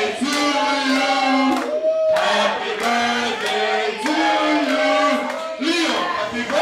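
A group singing together in held, stepping notes, led by a man's voice through a karaoke microphone and PA, with short breaks between phrases.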